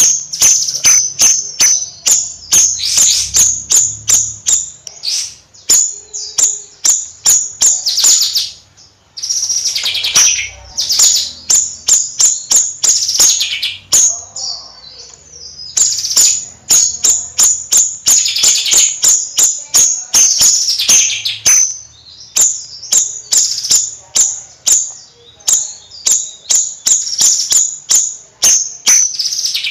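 Bayeman songbird singing vigorously: a fast, steady run of sharp, high chirps, several a second, broken every few seconds by longer trilled phrases.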